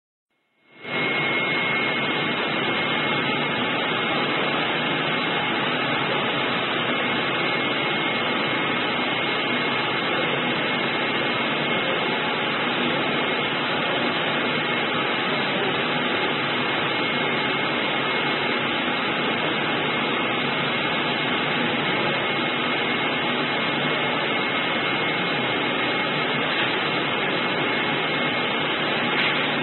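Flatbed CNC cutting machine running while idle: a steady rushing noise with a thin high whine, fading in over the first second.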